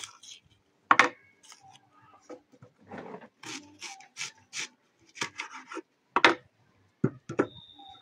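Kitchen knife cutting and peeling a white onion on a wooden cutting board: scraping of the papery skin and irregular knocks of the blade on the wood, the sharpest about a second in and about six seconds in.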